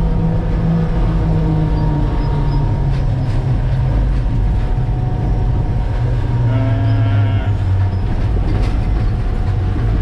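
Concrete mixer truck's diesel engine running steadily with cab and road noise as the truck drives along, a low drone with a brief higher tone joining about six and a half seconds in.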